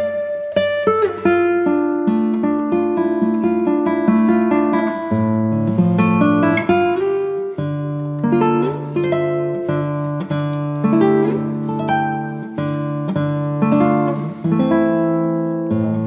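Instrumental background music: plucked notes and strummed chords on a string instrument, changing every second or so.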